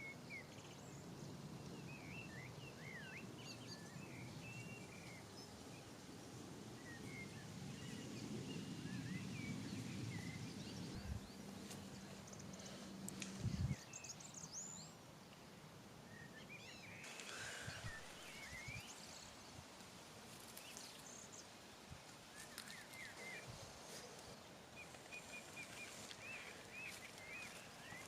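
Birds chirping and twittering over a quiet outdoor background, with a low rumble through the first half and a couple of dull thumps around the middle.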